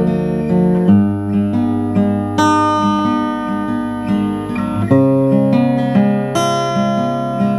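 Acoustic guitar played fingerstyle: ringing picked chords over a steady bass pulse, changing chord about a second in and again about five seconds in. The strings have just been wiped clean with a string-cleaning fluid.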